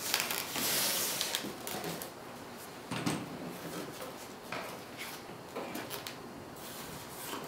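Foam model glider parts being handled and fitted together on a tabletop: a rustling rub for the first second or so, then scattered light knocks and clicks.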